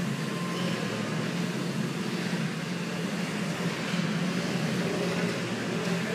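Steady low hum with an even hiss of background noise, with no distinct knocks or thuds standing out.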